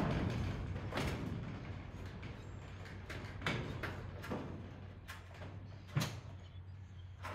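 Scattered knocks and clanks from hand work on a wooden barn post, about four or five sharp ones, over a steady low hum. A heavier rumbling knock fades just at the start.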